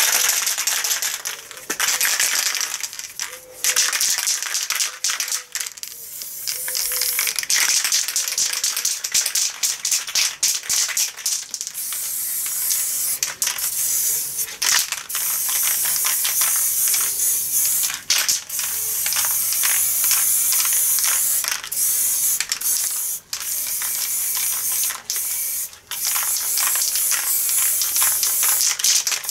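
Aerosol spray paint can hissing in repeated bursts, broken by many short pauses as the nozzle is released and pressed again. A rattle, typical of the can's mixing ball when it is shaken, comes through at times.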